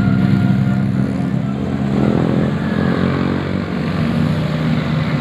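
Large tour bus's diesel engine running close by, its pitch rising a little about two seconds in as it picks up speed.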